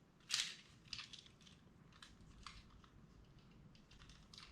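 Small plastic LEGO Technic parts clicking as a stud is pushed into place: one sharper click about half a second in, then a few faint ticks.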